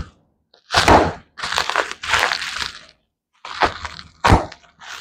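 Plastic packaging crinkling and crackling in several short bursts as a parcel is unwrapped, with a sharp crack about four seconds in.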